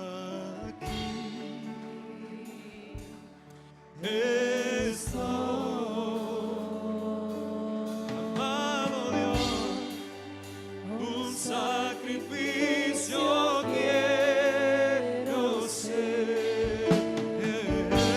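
Christian worship song, sung with vibrato over steady instrumental accompaniment. It is softer at first, and the singing comes in strongly about four seconds in.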